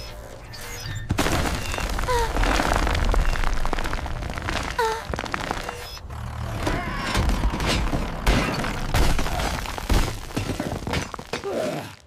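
Animated sound effects of a concrete wall cracking and crumbling: low rumbling with repeated cracks and thuds, over background music.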